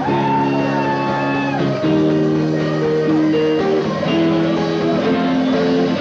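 Live rock band playing: electric guitars ring out held chords that change every second or so, over drums and cymbals.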